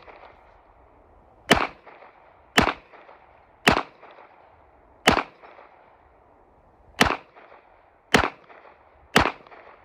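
Seven single shots from a .40 S&W pistol, fired at an unhurried pace of about one a second with a slightly longer gap in the middle, each crack followed by a short echo.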